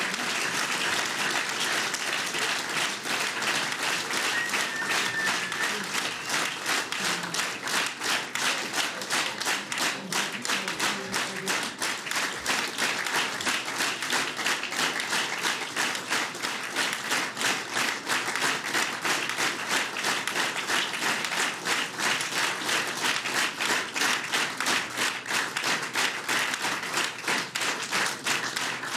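Crowd applauding at length, many hands clapping together. In the second half the clapping falls into a steady rhythm, the crowd clapping in unison.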